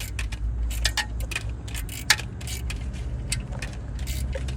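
Irregular sharp metallic clicks and clinks of hand tools and bolts being worked on a truck engine, over a steady low rumble.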